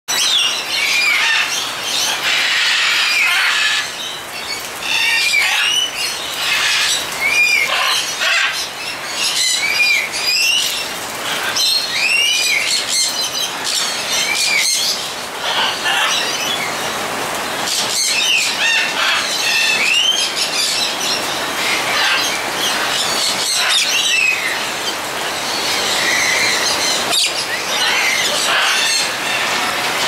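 Parrots and cockatoos in an aviary calling: many short rising-then-falling whistles, repeated every second or two, mixed with chirps and squeals, over a steady hiss of rain.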